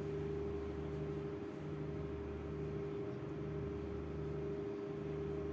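Steady low mechanical hum with a constant tone, under which a lower tone swells and drops out about once a second.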